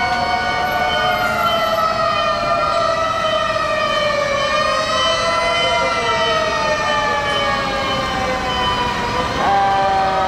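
Several Tokyo Fire Department fire-engine sirens wailing at once as the trucks pass in a line, their overlapping tones slowly sliding in pitch. Near the end a louder siren cuts in at a higher pitch.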